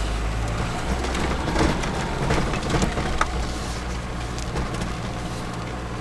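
Cabin sound of a SsangYong Musso driving slowly in second gear through deep fresh snow: a steady low engine drone under a rushing noise from the tyres working through the snow. Scattered clicks and knocks come through it, most of them two to three seconds in.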